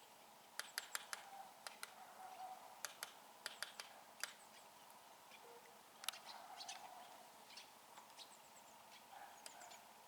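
Woodpecker pecking at wood: irregular single sharp taps, not a fast drumroll, mostly in the first half and a few more later. Faint high chirps of small birds are heard at the start and near the end.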